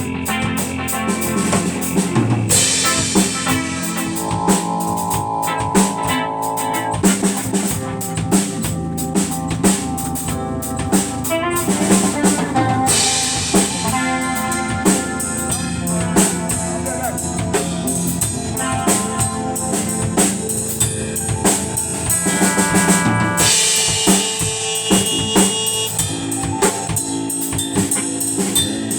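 Instrumental hip-hop beat: a steady drum-kit pattern of kick, snare and rimshot under sustained melodic and bass parts.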